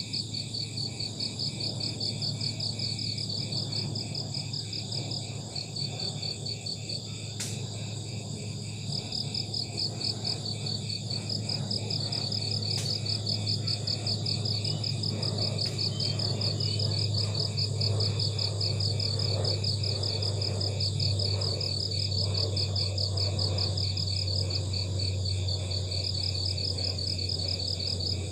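Crickets chirping in fast, continuous pulsed trills, over a steady low hum.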